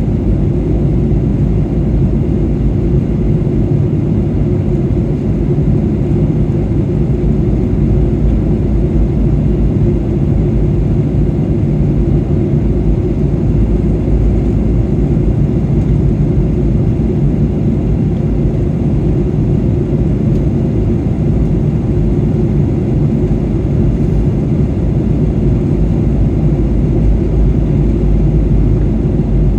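Steady cabin noise of a Boeing 737-800 in cruise or early descent: an even, low rumble of engine and airflow heard inside the cabin.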